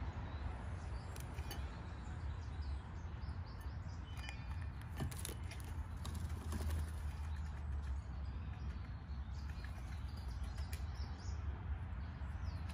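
Steady low wind rumble on the microphone, with a few short clicks and flutters as a Steller's jay takes off from a plastic garden chair.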